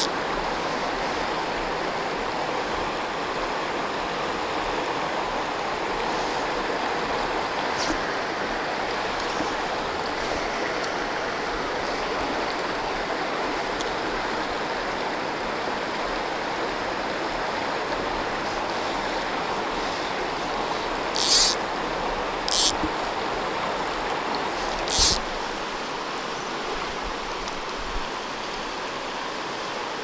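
A river running high after rain, its current rushing steadily over rocks and riffles. Three brief scratchy noises, louder than the water, come close together about two-thirds of the way through.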